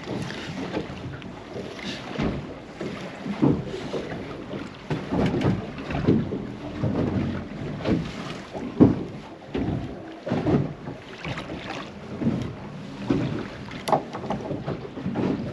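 Small waves slapping and lapping irregularly against the hull of a small drifting boat, with wind buffeting the microphone.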